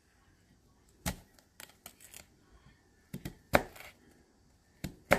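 A run of short clicks and taps, about eight in all, as food is handled on and over a ceramic plate; the loudest come a little past halfway and near the end.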